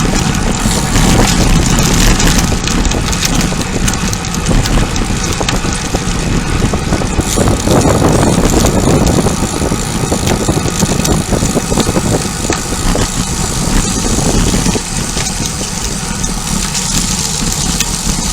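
Steady rush of wind on the microphone with road and tyre noise from a bicycle ridden at speed.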